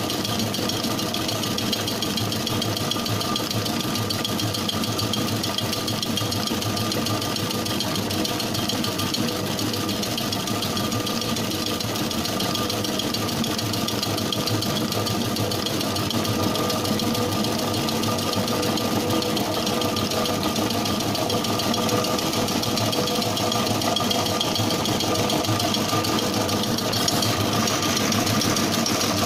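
Commercial planetary mixer running steadily, its whisk beating sponge cake batter in a stainless-steel bowl: an even motor hum with a steady whine.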